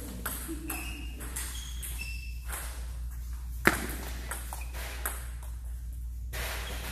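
Table tennis balls clicking off paddles and the table in a rally, with more ball clicks from neighbouring tables; the sharpest click comes about halfway through. A steady low hum runs underneath.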